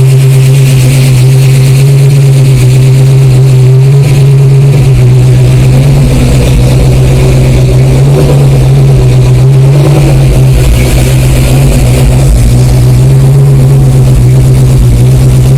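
1965 Ford Mustang's freshly built 347 stroker V8 running loud and steady at idle through dual Flowmaster Super Series mufflers with an X-pipe.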